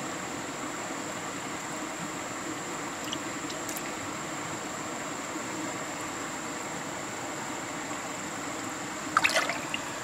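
Steady trickle of water into a shallow muddy pool, with a short burst of sharp splashes about nine seconds in as a fish thrashes at the surface.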